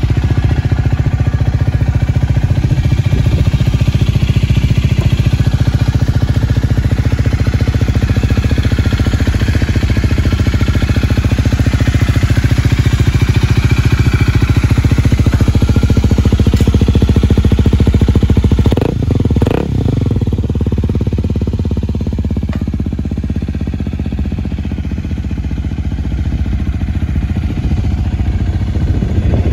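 Honda Rebel 250's single-cylinder engine running steadily through an Over Racing aftermarket exhaust. There is a brief sharp disturbance about two-thirds of the way in, after which the engine note continues somewhat quieter.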